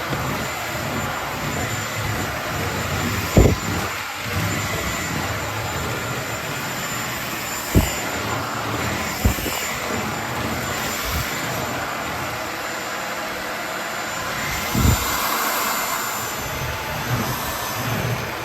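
Cordless stick vacuum cleaner running steadily, with a few short knocks spread through.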